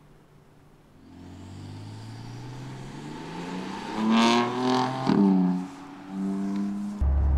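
BMW M4 Convertible's twin-turbo straight-six accelerating past. The engine note rises and grows louder, with a sharp crack about five seconds in, then drops in pitch as the car goes by. Near the end it cuts suddenly to a steady low drone.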